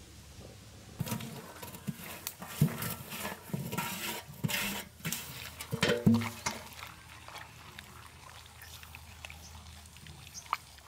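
A run of knocks and clatter from hands-on food preparation, starting about a second in. The loudest knocks come about two and a half seconds in and again around six seconds in. It thins to a faint steady background from about seven seconds.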